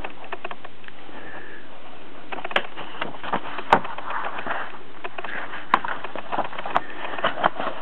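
Paper pages of a softcover booklet being turned and handled: rustling, with several sharp clicks, over a steady hiss.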